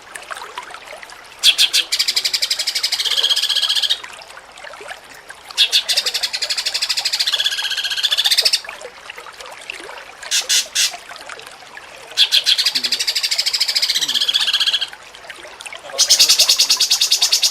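Recorded song of a cucak cungkok, used as a training master for songbirds: five rapid rattling trill phrases with short pauses between them. Most phrases last two to three seconds and drop in pitch at the end; the third is brief.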